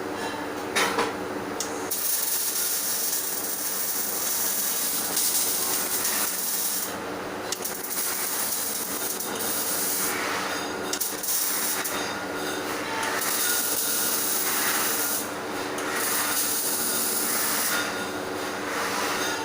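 MIG welding arc crackling and hissing in about five runs of one to five seconds each, with short breaks between them, over a steady hum. A couple of sharp clicks come in the first two seconds.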